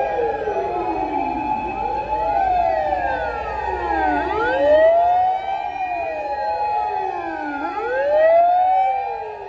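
Several fire engine sirens wailing at once and out of step, each rising and falling in pitch every two to three seconds, over one steady held tone, as a column of fire trucks passes on an emergency run.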